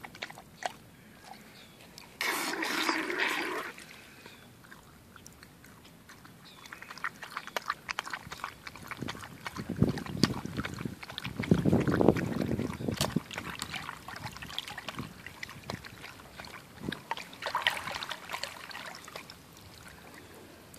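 Siberian husky lapping water non-stop from a bowl, a rapid run of wet laps and splashes, while a garden hose lying in the bowl keeps water running into it. The splashing swells at times, loudest about two seconds in and again around the middle.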